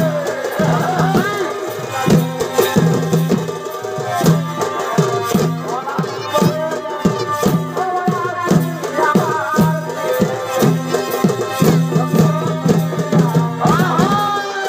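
Purulia chhau dance music: drums beaten in a steady, driving rhythm under a wavering reed-pipe melody.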